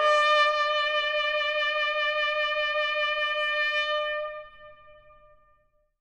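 Solo trumpet holding the long final note of the show's signature closing fanfare. The note is steady, then fades away over the last two seconds.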